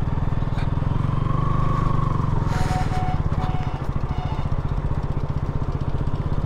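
A vehicle's engine running steadily at low speed, with an even, rapid low pulse.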